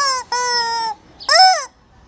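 Squeaky rubber chicken squealing: one long, steady squeal, then a short, higher squawk that bends up and falls away about a second later.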